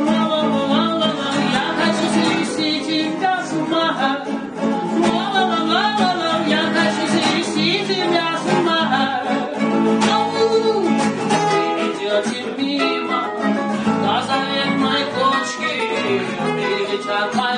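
Acoustic guitar played by a man who is singing along with it, a song performed live.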